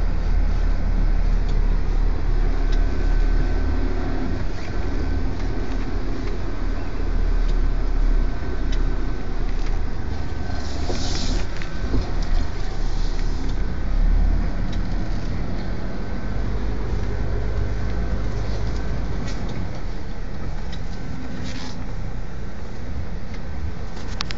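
MAN TGS 35.440 8x4 tipper truck's six-cylinder diesel engine running with a deep rumble that rises and falls under load, over a faint steady whine. A brief hiss comes about halfway through and another near the end.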